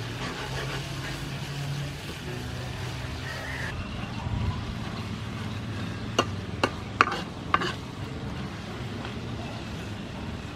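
Shrimp stir-frying in a frying pan, sizzling steadily as a metal spatula stirs and tosses them, with a few sharp clinks of the spatula against the pan a little past the middle.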